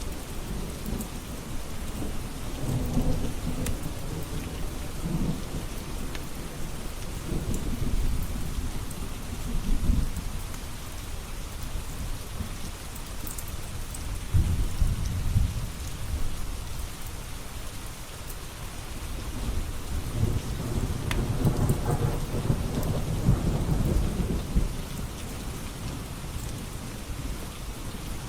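Steady rain with thunder rumbling in long, low rolls that swell and fade several times: about three seconds in, around eight to ten seconds, around fifteen seconds, and again from about twenty to twenty-four seconds.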